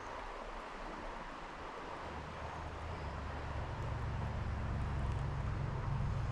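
Small creek's water running steadily, with a low rumble building from about two seconds in and growing louder.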